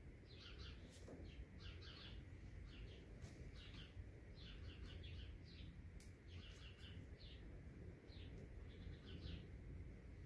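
Faint chirping of small birds, short high notes in quick clusters of three or four, repeating throughout over a low steady hum, with a few faint clicks.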